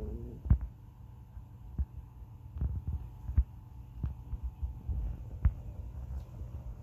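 A few dull low thumps at uneven intervals, the loudest about half a second in and near the end, over a steady low hum.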